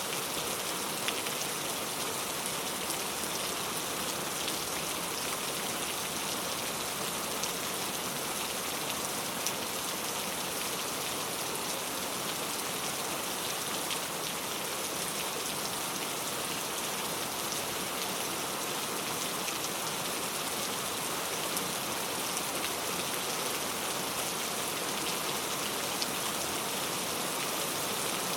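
Very heavy rain falling steadily, a dense even hiss with scattered sharp drop ticks.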